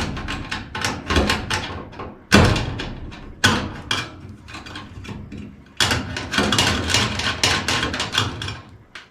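Metal clattering and knocking from tools working on a gas furnace's sheet-metal parts: irregular sharp strikes, some in quick runs, with a few louder bangs about two and a half, three and a half and six seconds in.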